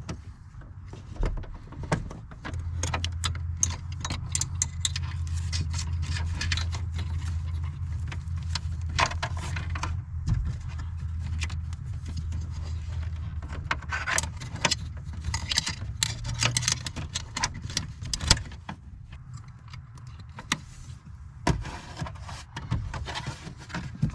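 Metal clinks and rattles of a new parking brake cable and its fittings being handled and fed into place, with irregular clicks throughout. A steady low hum runs under them from a couple of seconds in until about two-thirds of the way through.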